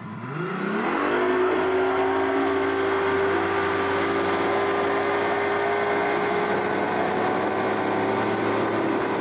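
Yamaha VMAX outboard motor accelerating the boat onto plane, its pitch rising over about the first second, then running steadily at cruising speed.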